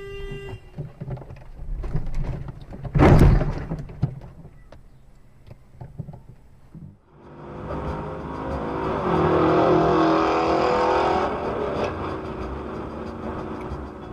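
Dash-cam audio of road traffic. A car horn cuts off right at the start, and a single loud collision bang comes about three seconds in. After a lull, steady engine and road noise of a car at highway speed swells and then eases.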